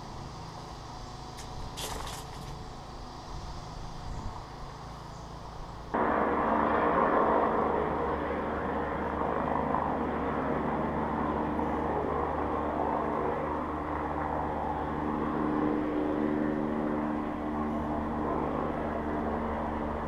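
Road traffic from the street below. A few faint clicks come near two seconds in. About six seconds in the level jumps suddenly to a louder, steady vehicle engine hum that carries on.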